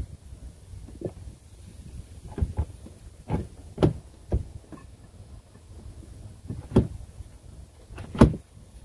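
Hollow plastic knocks and clunks from the parts of an Aerobin plastic compost bin being handled and fitted together at its top rim: a string of separate knocks, the loudest a little before four seconds in and near the end.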